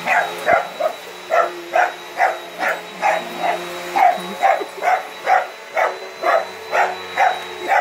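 Dachshund barking nonstop at a running vacuum cleaner, a little over two barks a second, over the vacuum's steady motor hum and whine.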